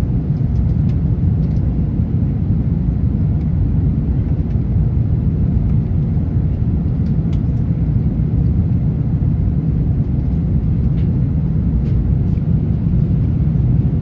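Steady low cabin rumble of a British Airways Airbus A380 in flight: engine and airflow noise from its Rolls-Royce engines, even throughout, with a few faint ticks.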